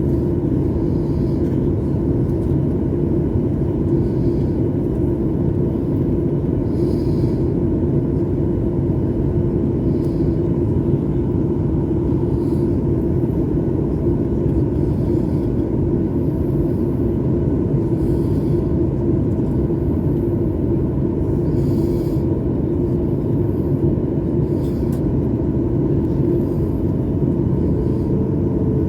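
Steady rumble inside an airliner's cabin in flight: engine and airflow noise with a constant low hum. A second, slightly higher hum joins near the end.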